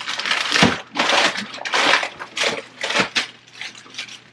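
Plastic food containers and packaging being handled: a run of loud, irregular crinkling and clattering that dies away near the end.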